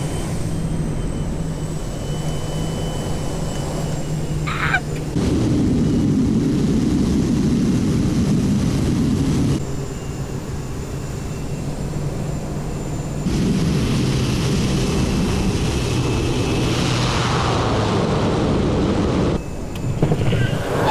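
Kodiak 100's Pratt & Whitney PT6A turboprop engine and propeller running steadily, heard from inside the cabin during approach and landing on a grass strip. The sound comes in several cut-together stretches that jump abruptly in level.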